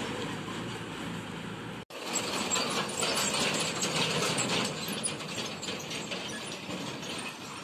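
Indian goods lorries on a rutted dirt road: the engine runs while the loaded body and tailboard fittings rattle and clank. A brief dropout about two seconds in, then denser rattling as a lorry approaches.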